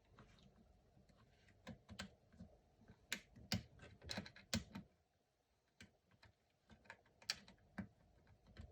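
Faint, scattered small clicks and taps of a screwdriver and fingertips working at the battery ribbon-cable connector inside an open laptop. The clicks bunch together about three seconds in, stop briefly just after five seconds, then come again near the end.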